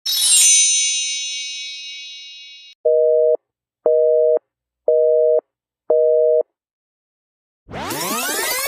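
A bright bell ding that rings out and fades over about three seconds. It is followed by four beeps of a telephone busy signal, one a second. Near the end a sweeping effect of many gliding, rising and falling pitches starts.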